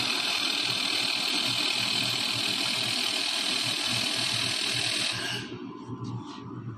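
Laser welding and cleaning machine at work: a steady loud hiss over a low hum that cuts off about five seconds in, leaving a quieter hum.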